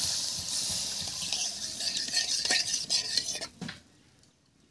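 Metal spatula stirring and scraping mustard-poppy masala paste as it sizzles in a kadai, with sharp clicks of the spatula against the pan. The sizzle stops abruptly about three and a half seconds in.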